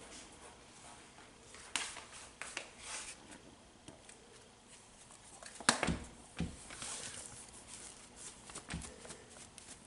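Light kitchen handling noises: scattered soft taps and clicks, with one sharper click a little past halfway, as curry powder is shaken from its container over chicken in a plastic tub.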